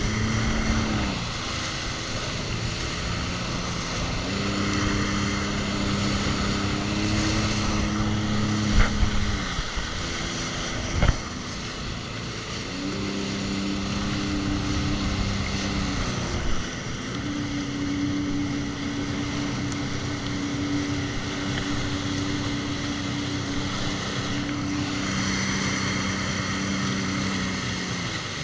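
Jet ski engine running under way, its pitch stepping up and down several times as the throttle changes. Two sharp thumps come a couple of seconds apart near the middle.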